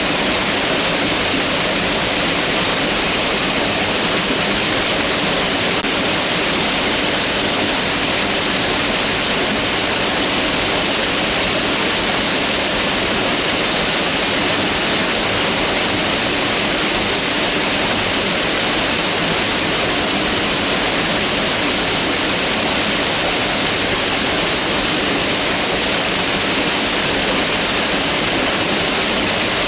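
Mountain river rushing steadily, a dense even water noise with no breaks.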